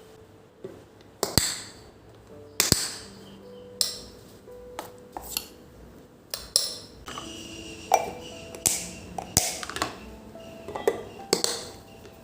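Dishes and utensils clinking and knocking: about a dozen sharp, irregular clinks with short ringing, over soft background music.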